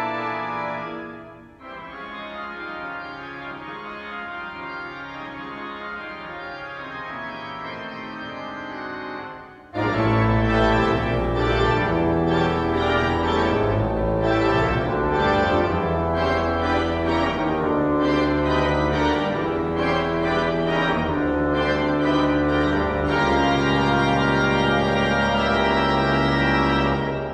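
Pipe organ being played in sustained chords: a softer passage first, then about ten seconds in the full organ comes in suddenly with deep pedal bass and holds loud, changing chords.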